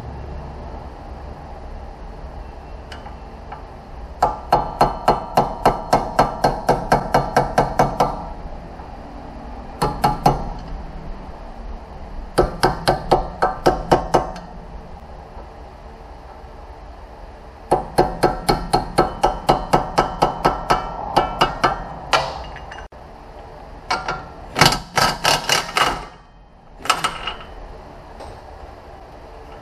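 Hammer blows on metal, given in several quick runs of about four or five ringing strikes a second, with short pauses between the runs.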